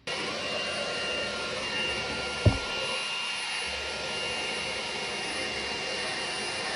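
Cordless handheld vacuum cleaner running steadily with a faint high whine, starting abruptly. A single sharp knock about two and a half seconds in.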